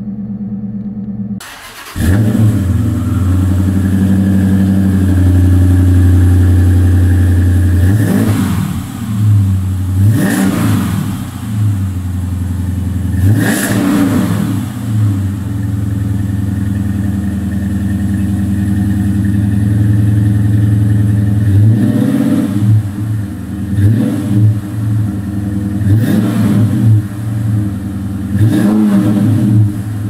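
2009 Dodge Challenger R/T's 5.7-litre Hemi V8 running through its exhaust, idling steadily and revved in short blips several times: three spaced a couple of seconds apart in the first half, then a quicker run of blips near the end.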